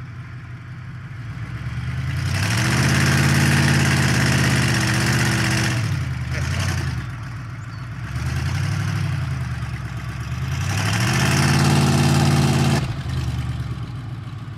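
Ford pickup truck engine revved up hard and held for several seconds, easing back, a short rev, then a second long rev that drops off sharply near the end. The truck's transmission is damaged and has lost reverse.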